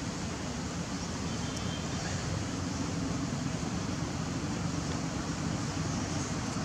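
Steady low rumbling background noise.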